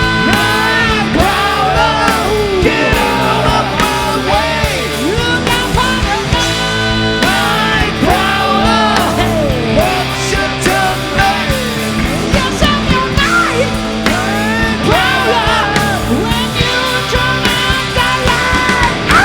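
Live hard rock band playing a slow blues, a lead line of bending, wavering notes over a steady rhythm section.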